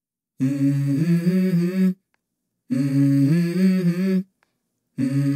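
Hummed vocal phrases in the soundtrack music: two phrases of about a second and a half each, with stepped pitch changes and dead silence between them, and a third beginning near the end. No cooking sound is heard.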